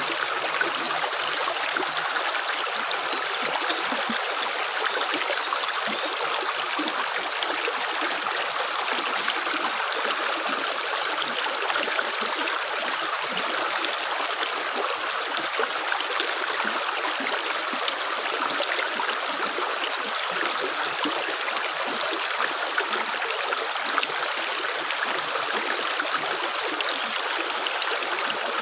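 Water flowing steadily, a continuous rushing stream with no separate drips.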